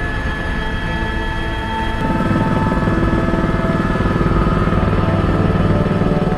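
Helicopter in flight: steady engine and rotor noise that grows louder and fuller about two seconds in.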